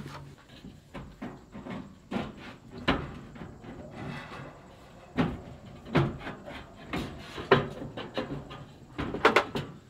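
Irregular clicks and knocks of construction materials being handled and set down, with sharper knocks near the end.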